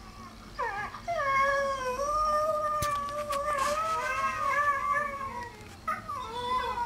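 Greyhounds howling, the drawn-out 'roo'. A call slides down in pitch about half a second in, then a long howl is held and wavers for several seconds. After a short break near six seconds, another howl falls in pitch.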